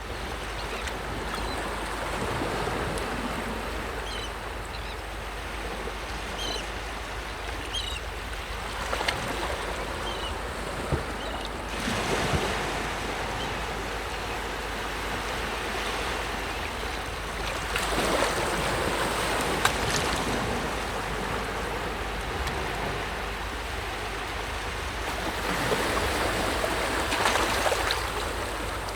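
Sea waves breaking: a continuous wash of surf that swells into a louder surge every six to eight seconds or so.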